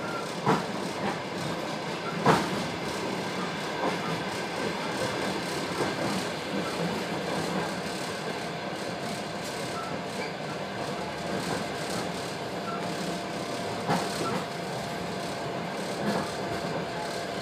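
Passenger train running, heard from inside the carriage: a steady rumble of wheels on track with a few sharp knocks, the loudest about two seconds in.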